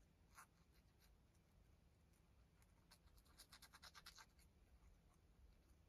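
Near silence, with faint scratchy rustling of fingers pressing and smoothing a paper pocket onto a journal page, including a quick run of small ticks about three seconds in.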